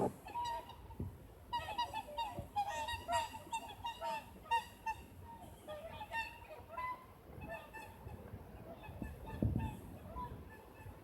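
A flock of swans calling as it flies over, many short overlapping calls that thin out in the second half. A low thud about nine and a half seconds in.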